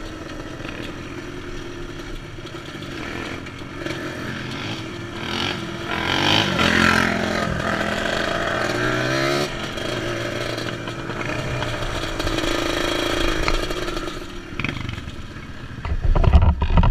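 ATV engine running under way, revving up about six seconds in and easing off around nine seconds. Loud low rumbling near the end.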